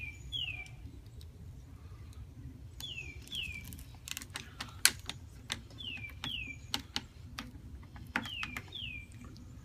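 Wooden gear and pawl of a home-made catapult clicking irregularly as its rope-wound spindle is cranked tight, with one sharper snap about halfway through. A bird calls in pairs of short falling chirps every few seconds.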